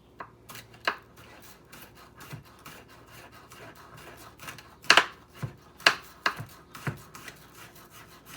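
Knife cutting salted garlic cloves: irregular light taps and scraping, with three louder knocks about a second apart near the middle.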